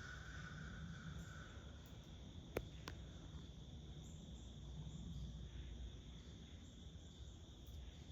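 Steady high-pitched drone of insects over a low outdoor rumble, with a faint steady whistle fading out in the first second or so. Two sharp clicks, a third of a second apart, about two and a half seconds in.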